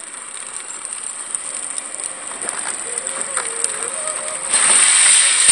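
Modified 24-volt Power Wheels ride-on four-wheeler driving along the pavement, its electric motors and plastic gearboxes whining over the rumble of its plastic wheels. The sound grows louder as it comes closer and is loudest for about the last second.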